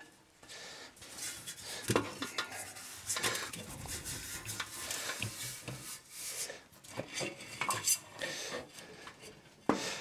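Steel drive roller drum of a reel mower being worked loose from its frame by hand: scattered metallic clinks, knocks and scraping as the drum shifts against the side plates, with a sharper knock near the end.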